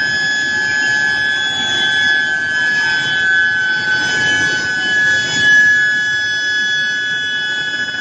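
Steel billet induction heating coils running, giving a steady high-pitched whine with overtones over a low industrial rumble.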